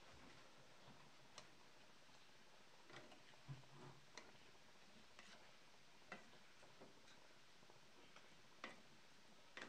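Near silence with a low hiss and scattered, irregular soft clicks as a slotted spatula turns cut potato pieces in a frying pan.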